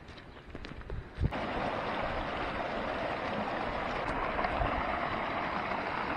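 Steady rush of running stream water. It is quieter for the first second, then comes in louder and holds steady from a sharp knock a little over a second in.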